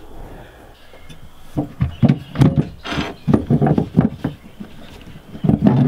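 Short, low vocal sounds from an animal in a run of bursts from about a second and a half in, then again just before the end.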